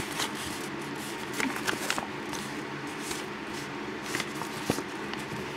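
Soft paper rustling with scattered small clicks as a large paper collector's checklist is handled and looked over.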